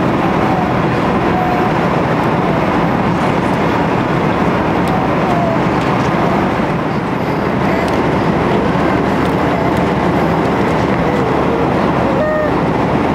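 Loud, steady roar of an airliner's engines heard from inside the passenger cabin, with the plane ready for takeoff.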